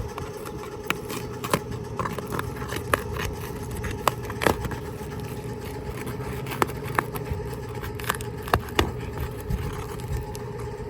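Roofing nails being worked loose from shingles: irregular sharp clicks and scrapes of a metal tool, over a steady low hum.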